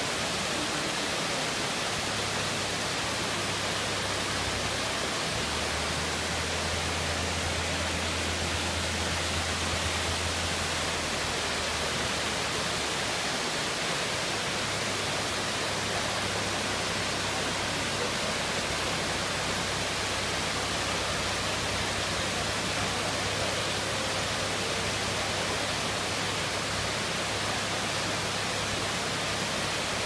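Small waterfall pouring over a broad rock ledge: a steady, unbroken rush of whitewater.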